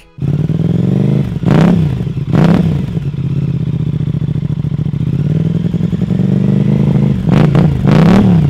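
Aprilia RS 660's cross-plane parallel twin, fitted with a full Arrow exhaust system with a catalytic converter, idling with a low grumble. The throttle is blipped twice, about one and a half and two and a half seconds in, then blipped several times in quick succession near the end.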